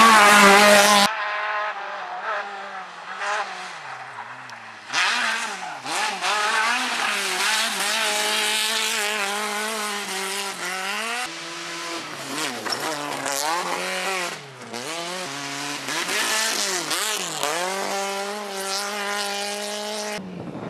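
N1-class rally cars at full effort on a gravel stage: engines revving hard, pitch climbing and dropping sharply with gear changes and lifts. It comes as several short passes cut one after another.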